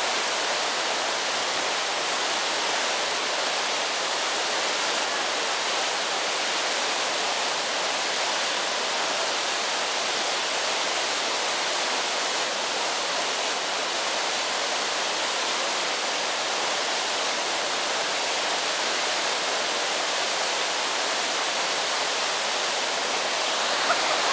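Water pouring over a river weir right in front of the microphone: a steady, even rush with no break.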